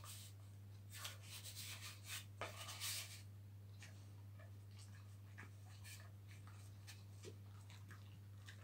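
A dog chewing a cardboard tube: teeth scratching and crunching on the cardboard in a quick flurry from about one to three seconds in, then only occasional faint clicks.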